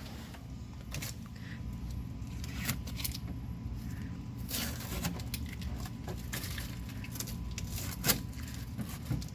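Scattered clicks, scrapes and rustles of hands handling a new, still unpowered dehumidifier's plastic housing, over a steady low hum.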